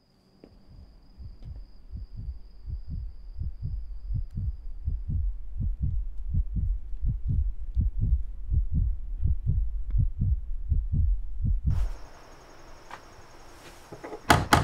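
Low, heartbeat-like pulsing, about two and a half beats a second, building from near silence and cutting off suddenly about twelve seconds in. A loud sharp hit comes near the end.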